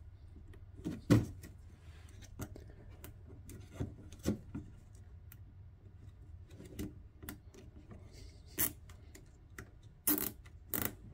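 Plastic zip ties being threaded through an LED light strip and plastic undershield and pulled snug by hand: scattered plastic clicks and rubbing, with a sharp knock about a second in and a quick cluster of clicks near the end.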